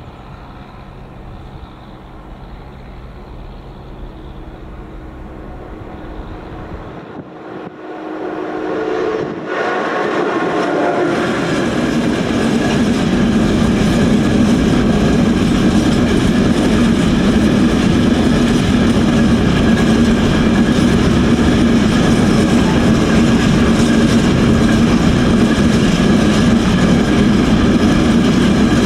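Freight train of container wagons, hauled by an electric locomotive, coming up and passing a level crossing at close range. The sound jumps to full loudness about ten seconds in and then holds as a steady rumble and clatter of the wagons rolling by.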